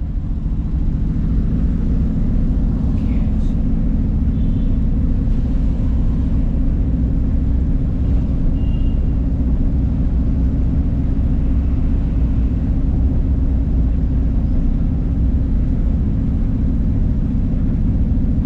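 Steady low rumble of a moving vehicle, heard from inside it, with two brief faint high chirps partway through.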